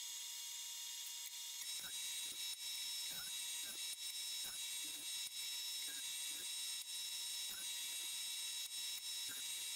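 Grizzly jointer-planer running as a board is pushed across it. The sound grows louder and hissier about a second and a half in, with irregular knocks about two a second.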